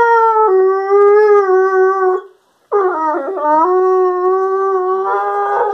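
Weimaraner–German pointer cross dog 'talking' in two long howling moans, each held at a fairly steady pitch, with a short break a little over two seconds in; the second wavers at its start before settling.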